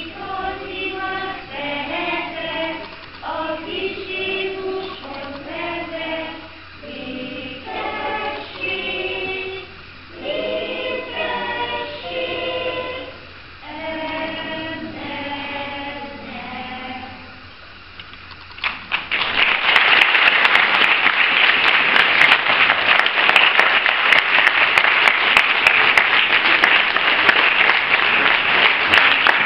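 A group of young children singing together. About two-thirds of the way through, the singing ends and loud audience applause breaks out and continues.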